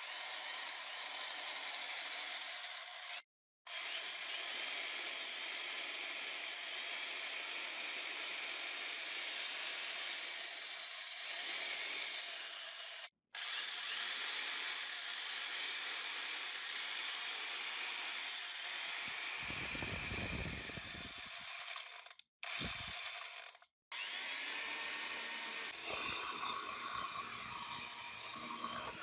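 Restored Hiroshima 100 V electric chainsaw running at speed, its motor and chain making a steady whir in several stretches broken by sudden stops. Near the end the chain bites into a dry wooden plank and the sound changes as it cuts.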